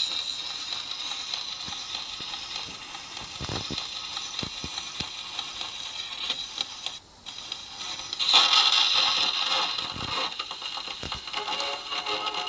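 Surface hiss and crackle of a worn miniature 78 rpm shellac record playing through an HMV model 109 wind-up gramophone's No. 4 soundbox. A steady hiss with faint clicks that cuts out for a moment about seven seconds in, then comes back louder and fuller, with the recording's music starting to come through near the end.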